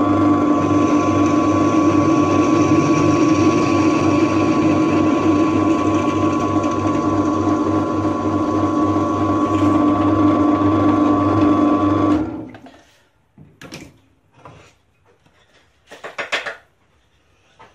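Pillar drill press running steadily as the bit is fed into a steel knife tang, then switched off about twelve seconds in, dying away within half a second. A few light clicks and knocks follow as the blank is handled.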